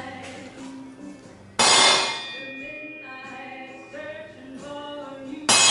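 Hammer striking a center punch on steel bracket, twice, about two seconds in and again near the end, each hit sudden and leaving a metallic ring. Background music with singing runs underneath.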